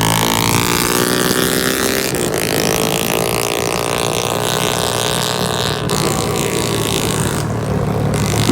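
Yamaha LC135's single-cylinder four-stroke engine, upgraded to 63 mm spec, revving through a GL Racing super-open big-cork exhaust. It is loud and shrill, with a trumpet-like note, and its pitch rises and falls with changes about two and six seconds in.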